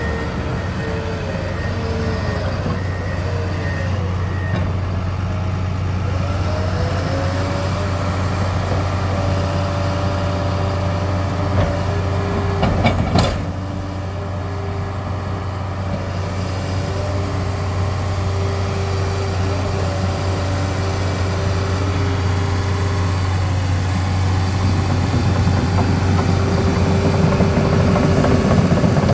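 Komatsu D61PX-24 crawler dozer's diesel engine running steadily under load, with its steel tracks and hydraulics making wavering whining tones as it moves and turns. A reverse alarm beeps during the first few seconds, there are a few sharp metallic clanks about halfway through, and the engine grows louder near the end as it pushes dirt.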